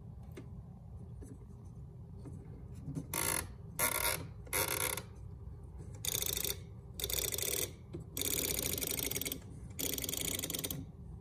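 GE 7-4310 flip clock radio being set: the side time-setting knob is turned and the flip-number cards flick over in seven short bursts of rapid clicking, the longest lasting about a second.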